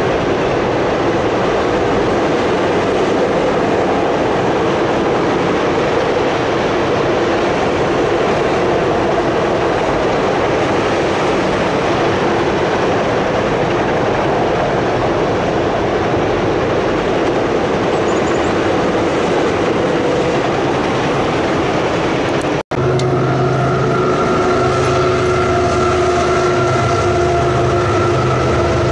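Freight train passing: a steady rumble of multilevel autorack cars rolling by on the rails. About three-quarters of the way through the sound drops out for an instant. It then resumes with steady whining tones over the rumble as open-top cars pass.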